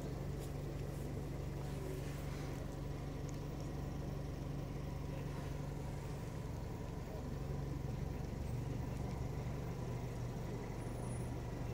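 Steady low drone of motor-vehicle traffic, with a few faint ticks in the first seconds.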